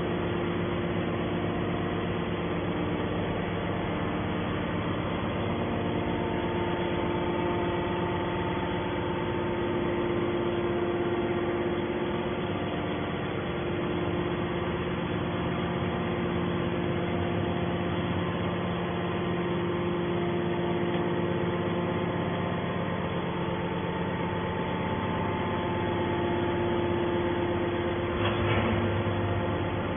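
Hydraulic can baler's electric motor and pump running with a steady hum, briefly rougher near the end.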